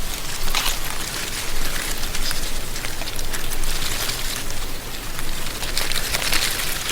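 Wind blowing through a tree canopy, dry autumn leaves rustling with a dense, fine crackle that swells and eases in gusts.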